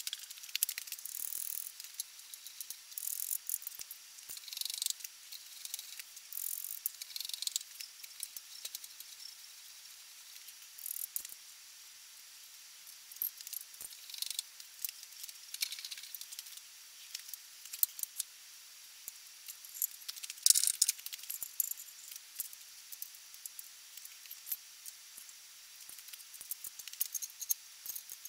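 Steel clamps, spanners and setup parts being handled on a metal shaper's table: irregular metallic clinks, scrapes and rattles, with one louder clank partway through and a spanner working a clamp nut near the end.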